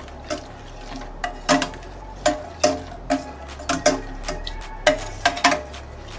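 A spoon stirring a thin honey-soy sauce in a stainless steel pot, clinking against the pot with irregular ringing knocks, about two a second.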